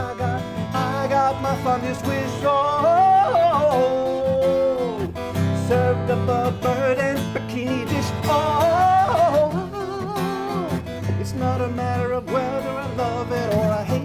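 A man singing over his own strummed acoustic guitar, with long held notes that waver and slide in pitch.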